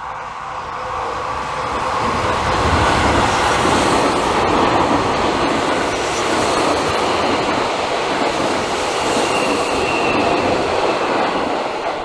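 Seibu Railway electric train passing close by: its running noise swells up over the first two seconds, stays loud for about nine seconds, then starts to fade near the end.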